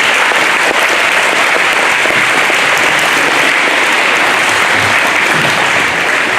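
An audience in a school gym applauding loudly and steadily, a dense wash of many hands clapping.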